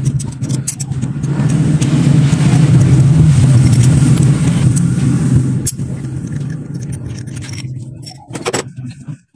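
A car engine running close by, getting louder over the first few seconds and then fading, with light metallic clicks and rattles of parts being handled over it.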